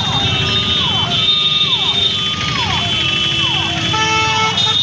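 Dense road traffic crossing a railway level crossing: engines and tyres with voices in the crowd. Through it an electronic tone repeats a falling note roughly once a second, and a vehicle horn sounds briefly near the end.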